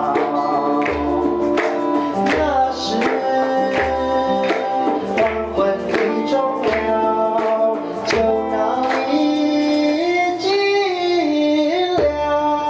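Live song: a man singing into a microphone over instrumental accompaniment with a steady beat.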